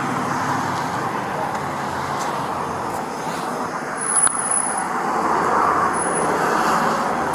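Steady road traffic noise from passing cars, swelling a little past the middle.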